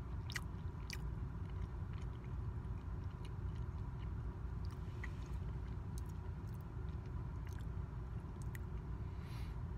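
A person chewing a frosted Pop-Tart toaster pastry close to the microphone, with scattered small crunchy clicks from the mouth. Underneath runs the steady low rumble of a car cabin.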